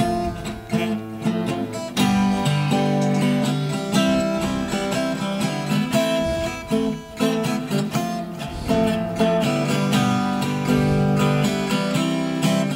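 Acoustic guitar playing an instrumental intro of strummed chords, lighter at first and fuller and louder from about two seconds in.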